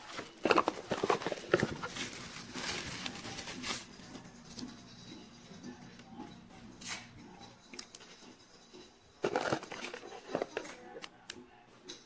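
Packaging crinkling and rustling as a car phone mount is unpacked and handled, in two bursts, with a few sharp clicks from its plastic parts in between.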